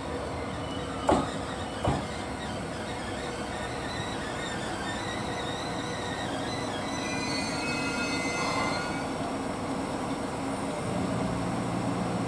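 A GV-E400 diesel-electric railcar arriving and stopping. Two sharp clacks from the wheels over a rail joint come about a second in, then the brakes squeal with several high tones as it slows, and near the end a steady low hum from the idling diesel engine sets in as it stands.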